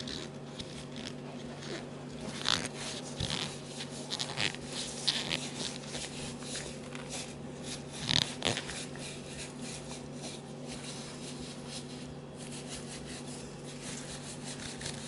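Cloth rag rubbing and wiping over small-engine carburetor parts close to the microphone, in irregular scrubbing strokes with a few louder scrapes, over a steady low hum.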